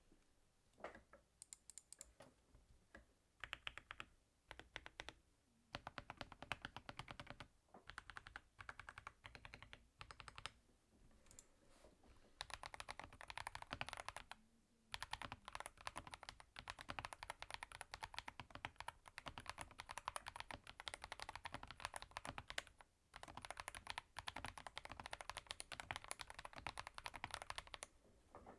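Typing on an Akko 5075B Plus mechanical keyboard built with a plastic plate, a tape mod and a band-aid mod. It starts with scattered single keystrokes and short runs, then becomes fast continuous typing from a little under halfway, broken by two brief pauses.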